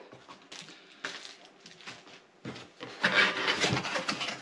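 Cardboard box being opened by hand: flaps and a cardboard insert scraping and rubbing against each other, with a few light knocks. The scraping is soft at first and louder for about a second near the end.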